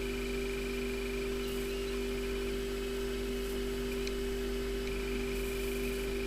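Steady electrical hum: two held tones over a low drone, unchanging throughout.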